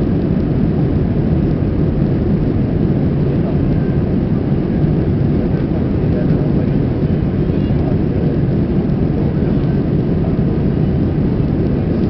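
Airbus A321 engines and airflow heard from inside the passenger cabin as a steady, loud, low rumble.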